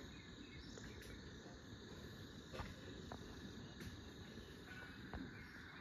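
Faint, steady chirring of insects, a thin high drone that holds the same pitch, with a few soft clicks.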